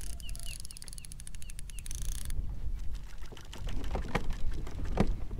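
Baitcasting reel's spool whirring in a fast, even ticking as line pays out on a cast, cutting off suddenly about two seconds in, followed by scattered clicks as the reel is worked, over low wind rumble. A bird chirps a few times at the start.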